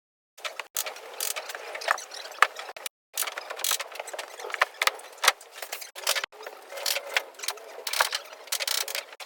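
Clicking, rattling and scraping of tools and fittings during assembly of a wooden bed frame, with sharp clicks now and then. It comes in several short sections that start and stop abruptly.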